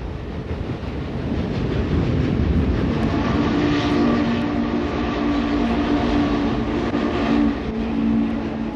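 Steam locomotive working toward the listener, its exhaust rumble building, then its chime whistle blowing a steady two-note chord from about three seconds in, with a short break and a second blast near the end. It sounds like an old field recording.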